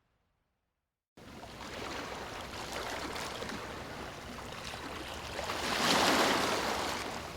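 Water rushing, cutting in abruptly after about a second of silence, swelling to its loudest near the end and then easing off.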